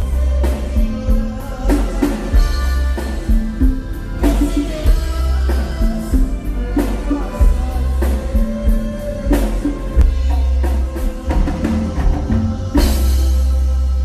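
Live norteño band playing amplified, a drum-kit beat over electric bass with pitched melody lines. A loud hit comes near the end, then a held chord rings on steadily.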